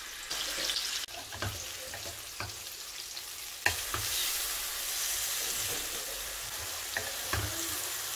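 Masala-marinated chicken pieces sizzling in hot oil in a non-stick frying pan while a spatula stirs them, with several short scrapes and knocks of the spatula against the pan. The sizzle jumps louder a little past halfway.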